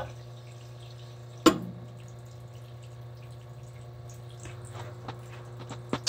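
Water trickling and dripping from a steam boiler's opened sightglass drain valve, over a steady low hum, with one sharp click about one and a half seconds in. Water running from the clear-looking sightglass shows that the glass is full and the boiler is flooded, not empty.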